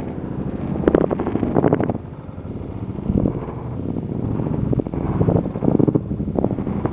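Wind buffeting the camera microphone: a low rumble that swells and drops in irregular gusts.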